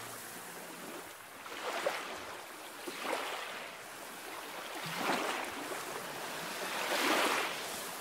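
Sea waves washing against a rocky shore, a hissing surge swelling and falling back every couple of seconds.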